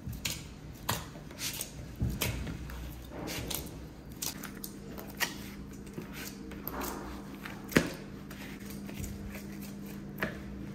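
Irregular light knocks and clicks of hands-on kitchen work, with one sharper knock about three-quarters of the way through; a steady low hum comes in about four seconds in.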